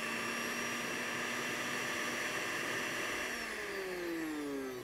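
Electric countertop blender running steadily as oil is poured in to emulsify homemade mayonnaise. Its whine falls in pitch over the last second or so as the motor slows.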